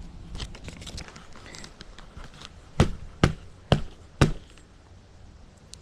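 Light handling clicks, then four sharp knocks about half a second apart from work on a bicycle's saddle and seat post during assembly.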